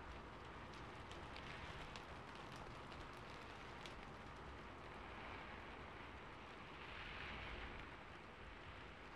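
Faint rain on a rooftop: a steady patter with scattered drips, swelling briefly about seven seconds in.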